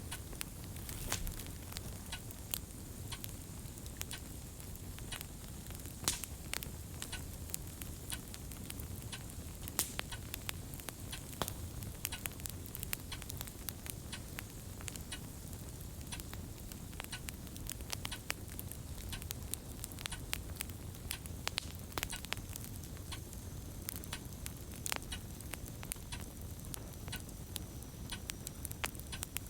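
Fireplace crackling: irregular pops and snaps over a low, steady rumble.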